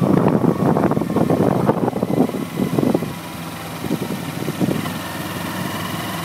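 Kawasaki Ninja 250R's parallel-twin engine running while riding, under heavy wind buffeting on the microphone. About three seconds in the wind noise drops away, leaving the engine's steady note.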